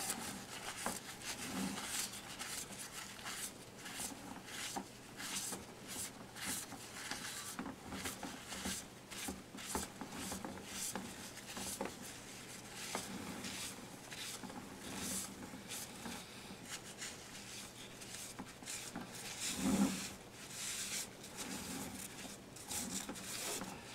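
Paper towel rubbing over the painted base of a statue, wiping a wet paint wash on and off in many short, irregular scratchy strokes.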